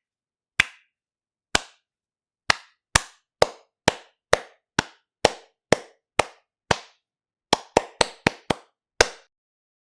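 Single hand claps, each sharp and separate with silence between: slow at first, about one a second, then about two a second, then a quick run of five, ending with one last clap about nine seconds in.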